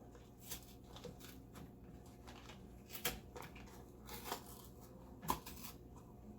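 Faint, scattered clicks and light knocks of things being handled, with the sharpest click about five seconds in.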